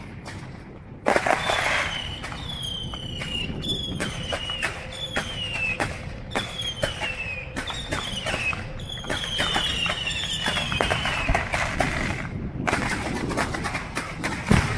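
Fireworks display going off: a loud burst about a second in, then rapid bangs and crackling pops with a quick run of short whistles that each fall in pitch, until about three-quarters of the way through, followed by more bangs.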